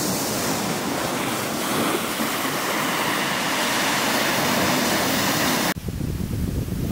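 Slushy lake water with floating ice washing against the shore ice: a steady wash of noise. Near the end it cuts abruptly to a duller, lower rumble.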